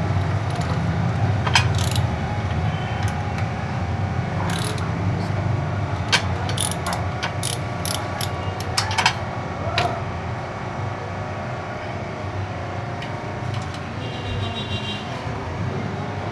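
Socket wrench turning the bolts that hold a portable generator's AVR: a series of sharp metallic clicks, coming about two a second in the middle stretch, over a steady low rumble.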